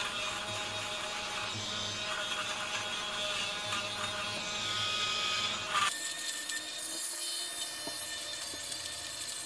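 Philips electric fabric shaver running with a steady buzz as it is passed over a fluffy cashmere knit sweater, shaving off pills. The sound changes abruptly about six seconds in.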